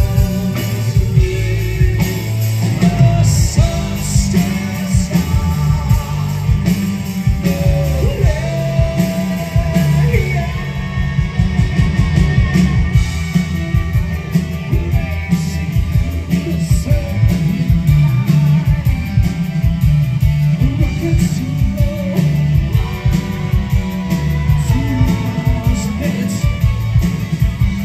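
Live progressive rock band playing, with a lead vocal over drums, electric guitars, keyboards and violin, heard from the audience.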